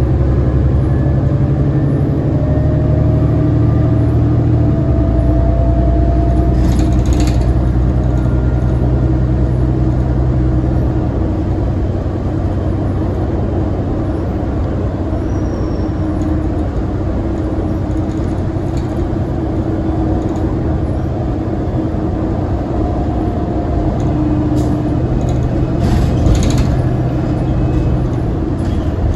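Inside a New Flyer D60LFR articulated diesel bus under way, its Cummins ISL9 engine running steadily with the drivetrain's hum. A faint whine rises in the first few seconds, and the engine note changes about five seconds in. Brief rattles come around a quarter of the way through and again near the end.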